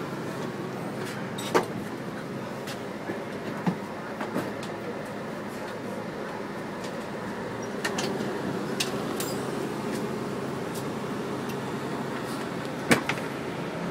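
Cabin of a 2001 New Flyer C40LF transit bus standing at a stop, its Cummins C Gas Plus engine running in a steady low rumble. A few sharp knocks and clicks sound over it, the loudest near the end.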